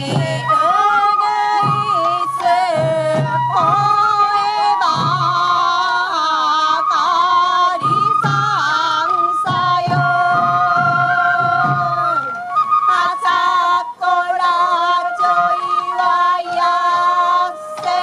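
Sansa odori festival music: taiko drums beating under a bamboo-flute melody and a singing voice. The drumming drops out after about twelve seconds, and the piece closes on long held notes.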